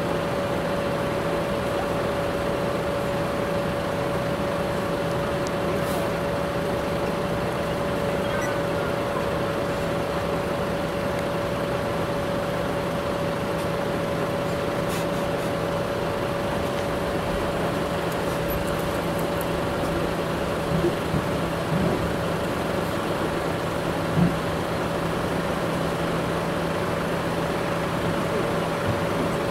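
A truck's diesel engine idling steadily: a constant hum with a steady whine over a broad rumble. There is one short knock about 24 seconds in.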